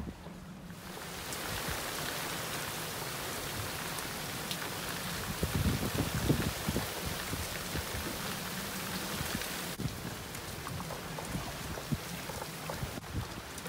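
Heavy rain pouring onto the sea and the boat. It is a dense, steady hiss that starts abruptly about a second in.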